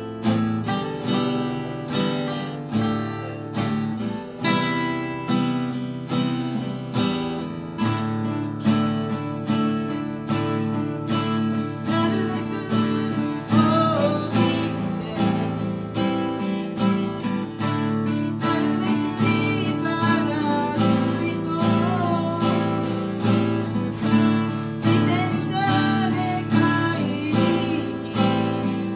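Two acoustic guitars, a Yairi and a Guild, played together, strummed and picked in a steady rhythm.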